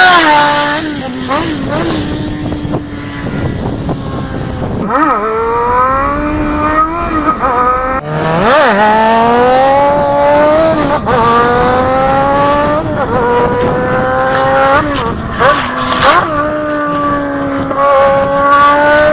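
Yamaha XJ6 inline-four motorcycle engine accelerating hard through the gears. Its note drops sharply about half a second in, then climbs steadily, with a brief dip at each upshift, before settling into a steady high note near the end.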